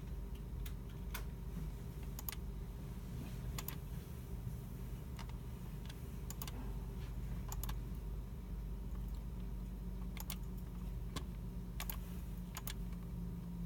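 Computer keyboard keys and mouse buttons clicking sparsely and irregularly, about one click a second, in a library computer room. Under them is a steady low hum, with a low tone swelling near the end.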